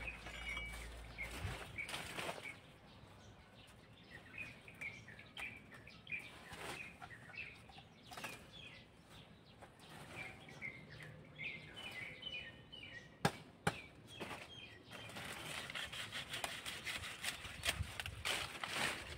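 Dry banana leaves and a woven plastic sack rustling and crackling as a fallen banana bunch is handled, with a sharp snap a little past the middle and denser rustling near the end. Small birds chirp repeatedly in the background.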